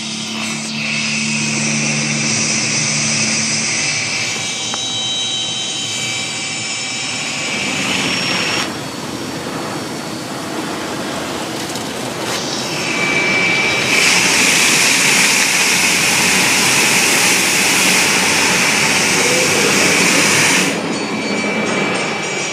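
Water spray and soft-cloth brushes of an automatic car wash hitting the car, heard from inside the car as a steady hiss and drumming on the glass and body. The spray drops back about a third of the way in, comes back louder a little past the middle, and eases again shortly before the end.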